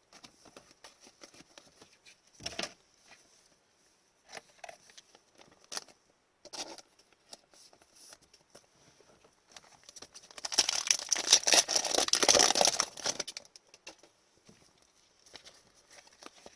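Trading cards being handled with scattered soft flicks and clicks, then about two and a half seconds of loud crinkling and tearing as a foil 2020-21 Upper Deck Series 1 hockey card pack is ripped open.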